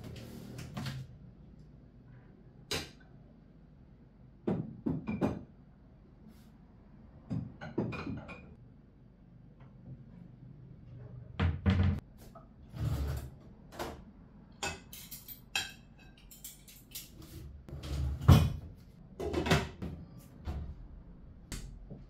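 Kitchen cupboard doors and dishes being handled: a string of separate clicks, knocks and clatters as cabinets are opened and shut and things are set down on the counter.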